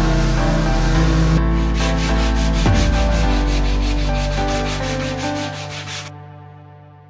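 Background music fading out, overlaid with a fast, even run of rubbing, scraping strokes that stops abruptly about six seconds in.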